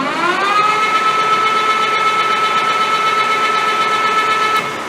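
1980 LeBlond Regal Servo Shift engine lathe's headstock and chuck spinning up to its top speed of 1800 RPM with a high whine. The whine rises in pitch in the first half second, holds steady, and starts to fall near the end as the spindle begins to slow.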